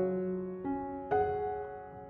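Background piano music: slow notes struck about every half second and left to ring and fade.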